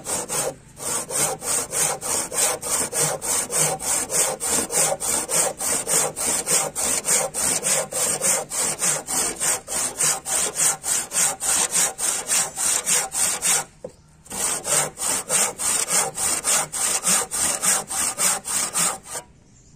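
Hand saw cutting across a wooden beam in quick, even back-and-forth strokes, about three a second, with a short pause about two-thirds through. It is sawing a kerf for a wood joint.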